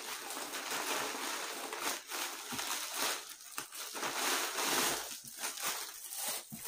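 Clear plastic packaging crinkling and rustling as it is handled and rummaged through, with irregular crackles.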